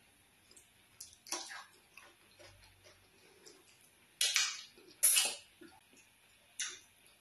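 Wet mouth sounds of eating slimy ogbono soup and fufu by hand: several sharp smacks and sucks as sauce is sucked off the fingers, the loudest two about four and five seconds in.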